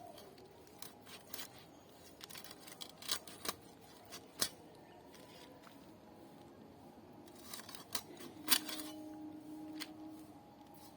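Catla fish being cut into pieces with a blade: irregular sharp clicks and crunches as the edge goes through scales and bone, bunched into two flurries with pauses between.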